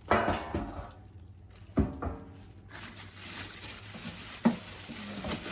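Metal chafing dish pans clanking as they are lifted and handled. There are three sharp knocks with a short ring, near the start, about two seconds in and about four and a half seconds in, over a rustle of packaging.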